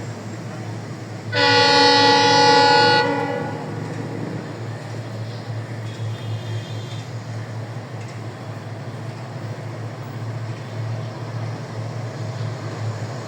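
WDP4D diesel locomotive's horn sounding one loud blast of several tones together, lasting about two seconds and starting about a second in, followed around five seconds in by a fainter, shorter note. A steady low rumble runs underneath.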